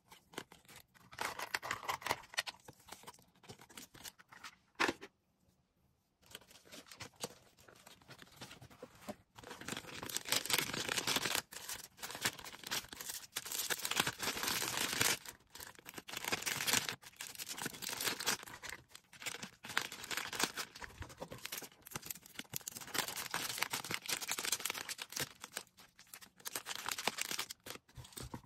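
Packaging material being handled while an order is packed: rustling, crinkling and tearing, with a short pause about five seconds in.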